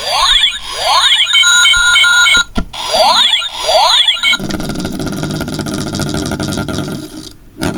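Electronic sound effects from a light-up toy spinning top: two quick falling zaps followed by a run of steady beeps, the pattern played twice. Then a steady buzzing whir for about three seconds, ending in a click.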